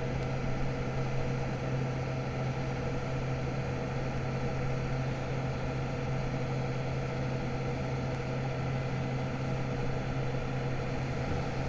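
John Deere 8320R tractor's diesel engine and the KMC peanut combine it drives, running steadily with a constant low hum and a few steady higher tones.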